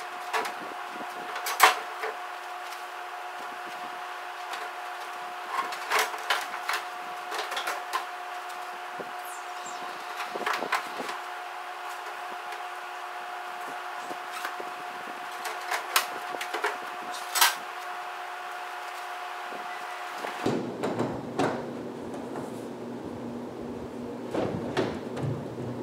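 Knocks, clacks and scrapes of a fiberglass upper engine cowling being set down and pressed into place against the lower cowling, at irregular intervals. A steady hum runs underneath and stops about 20 seconds in.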